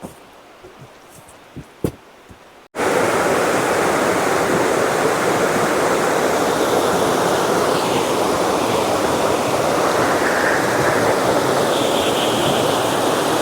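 A few faint ticks, then an abrupt start about three seconds in of loud, steady rushing water from a powerful waterfall.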